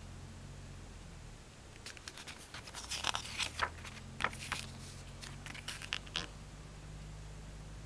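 Paper pages of a CD booklet being turned by hand: a burst of rustling and crackling from about two seconds in until about six seconds, over a steady low hum.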